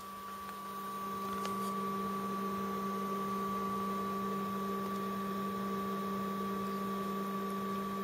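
Supermicro 743TQ-865B-SQ tower server running with its side panel off: a steady low hum of its cooling fans, with a few steady tones over a faint hiss, growing a little louder over the first second or two.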